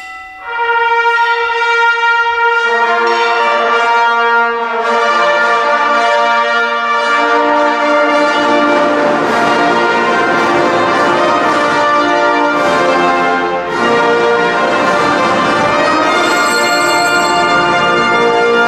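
Brass band playing slow, sustained chords, coming in about half a second in.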